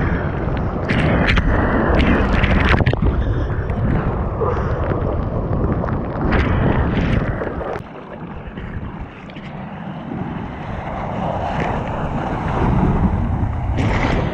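Breaking surf and rushing water close to a GoPro's microphone, with wind buffeting and sharp splashes hitting the camera. The sound drops quieter a little past halfway, then builds again.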